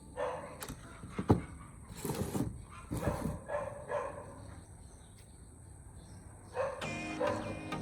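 A dog barking several times in short calls, with a sharp click about a second in.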